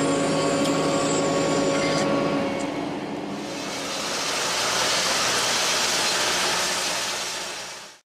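Farm vehicle engine running steadily, heard from inside the cab, with a steady hum for the first couple of seconds. From about three seconds in a broad rushing noise swells over it, and the sound cuts off abruptly near the end.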